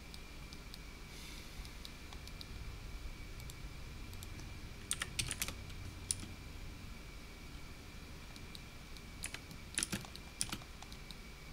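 Computer keyboard keys clicking in a few short clusters, about halfway through and again near the end, over a faint steady high whine.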